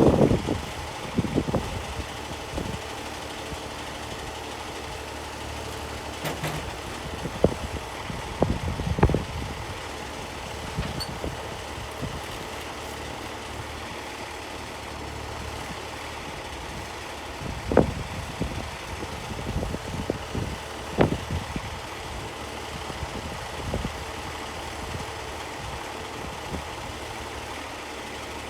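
An engine idling steadily, with scattered knocks and clunks over it, the loudest about nine and about eighteen seconds in.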